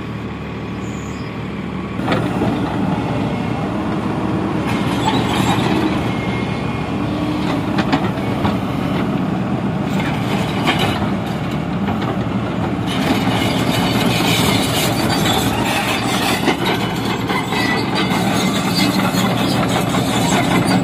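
Heavy earthmoving machinery running steadily, its diesel engine working with a clattering, metallic rattle and occasional short squeaks. It gets louder about two seconds in.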